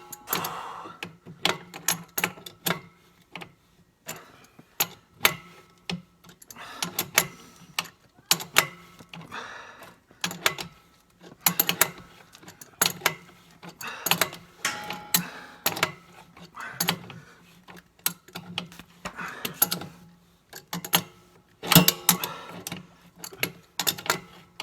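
Bursts of rapid clicking and clattering that come back about every second: hand tools at work on a plumbing fitting.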